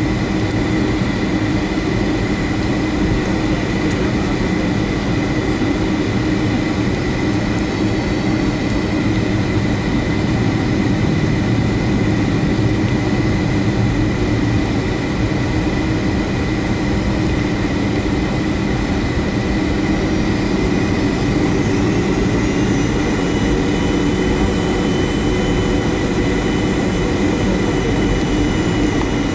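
Boeing 757-300 jet engines at low taxi power, heard inside the cabin over the wing: a steady rumble with a steady high whine.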